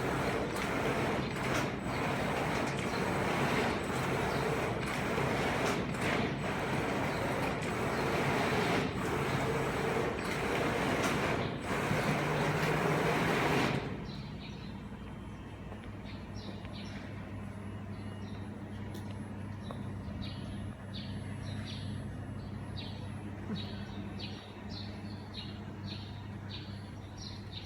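Fiber laser cutting machine running its motion program, a loud steady rushing-whirr with frequent quick changes as the head moves. It stops abruptly about halfway through, leaving a steady low machine hum with a run of short high chirps.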